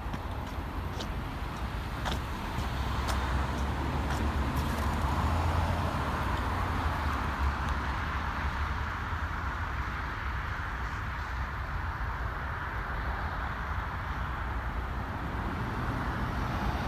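Road traffic: a motor vehicle's engine and tyre noise swells from about two seconds in, is loudest around five seconds, then settles into a steady traffic hum. No horn is heard.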